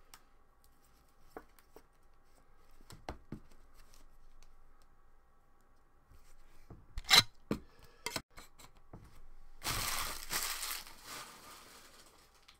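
A trading card and its clear plastic holder handled by hand: scattered light clicks and taps, a sharp plastic click about seven seconds in with a few smaller ones after it, then a burst of crinkling, rustling noise lasting just over a second near ten seconds in.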